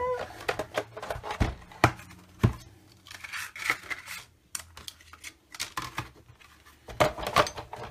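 Clear cutting plates and a magnetic platform being pulled out of a Big Shot die-cutting machine and set down with a few sharp knocks. Die-cut cardstock is then peeled off the plates and dies with crinkly rustling, and there are more knocks near the end as the plates are handled again.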